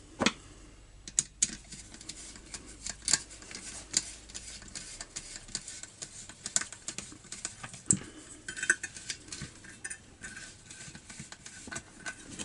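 Screwdriver driving the bolts that hold a replacement carburettor and air-filter cover on a four-stroke trimmer engine: irregular small metallic clicks and clinks of the tool and bolts against the carburettor, with a few sharper knocks.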